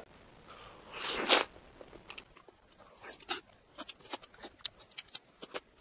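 Close mouth sounds of biting into and eating cubed ripe mango flesh: a short breathy sound about a second in, then a run of short, wet clicking bites and chews.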